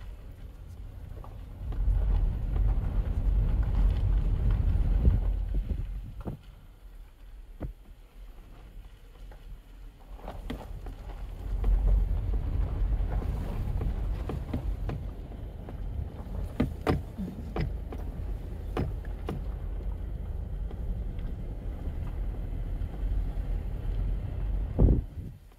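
Low rumble of a slowly moving car with wind buffeting the microphone. It surges twice, once briefly and once for most of the rest, and a few sharp clicks come through.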